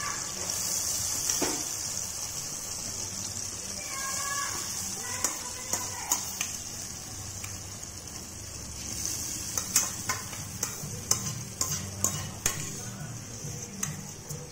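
Hot oil, chopped tomatoes and green chillies sizzling in a pot under freshly added soaked rice, a steady hiss: the rice frying in the cumin tempering before water goes in. From about nine seconds in, a run of sharp pops and clicks sounds over the hiss.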